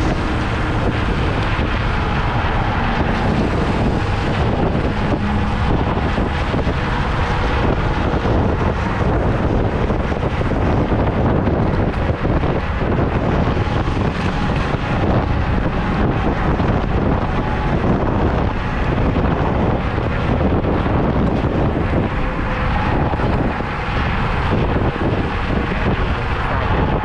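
Steady wind rushing over the microphone with tyre and road noise from a Kaabo Mantis electric scooter riding at speed.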